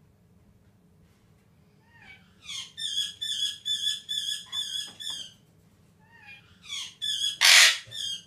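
Pet parrot vocalising: a run of quick repeated warbling notes, about three a second, then a second run broken near the end by one loud harsh squawk.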